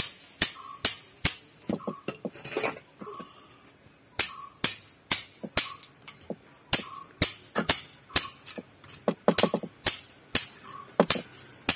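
Hammer striking a steel chisel to chip a small pit into a stone block: sharp blows about two a second, each with a metallic ring, with a pause of about two seconds a few seconds in.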